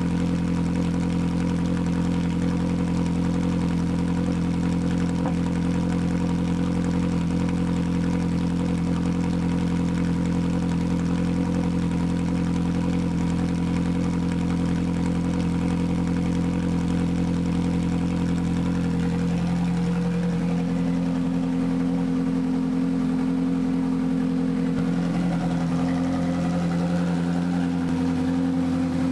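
Ferrari 458 Challenge's flat-plane-crank 4.5-litre V8 idling steadily, heard close at its twin exhaust tips. Its note shifts slightly about two-thirds of the way in.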